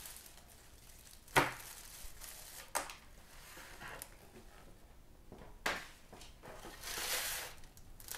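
A metal baking tray handled with a foil-wrapped lamb on it: three sharp knocks, the first about a second in and the loudest, then a rustling scrape near the end as the tray is slid into a wood-fired oven.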